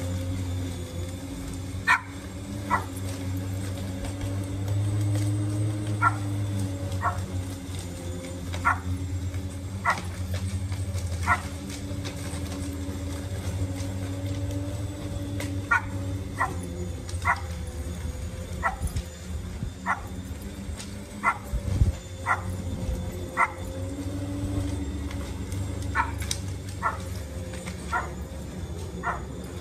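Corded electric lawn mower running steadily with an even motor hum while cutting thick grass. Over it a dog barks in short sharp barks, roughly one a second with a few pauses, louder than the mower.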